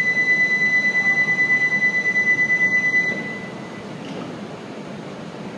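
Door-closing warning buzzer for an E5 series Shinkansen: one high, rapidly pulsing tone that stops about three seconds in as the doors shut. A steady low hum carries on beneath it.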